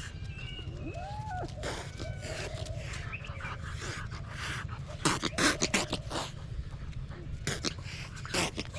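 A dog and a kitten making noise in a play fight: short wavering calls in the first couple of seconds, then loud sharp bursts about five seconds in and again near the end.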